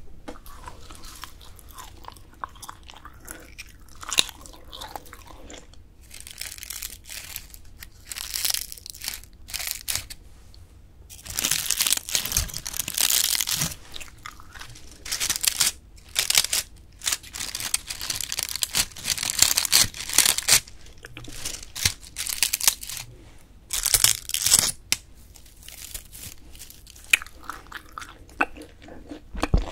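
A bunch of dried flowers, baby's breath and roses, rustled and crushed close to the microphones, giving crisp crackling. It is light and scattered at first, then dense and loud through the middle.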